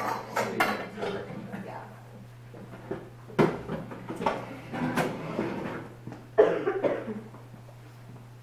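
People moving around a table: several sharp knocks and paper rustles, the loudest about six seconds in, with a few brief low voices over a steady low hum.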